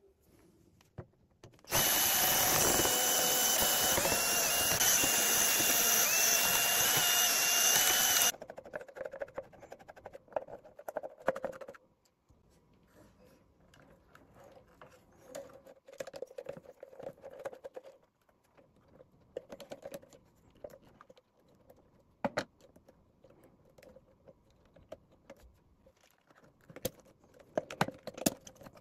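A small electric power tool's motor runs steadily for about six and a half seconds, starting and stopping abruptly, with a faint wavering whine over a dense hiss. After it come light scattered clicks and taps of hand work on the amplifier's parts.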